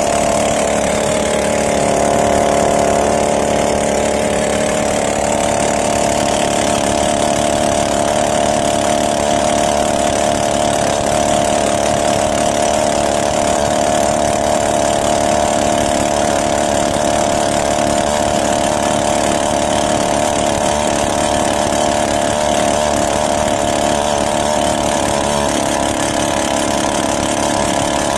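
Small fibreglass fishing skiff's engine running steadily under way. Its pitch shifts over the first few seconds, then holds even.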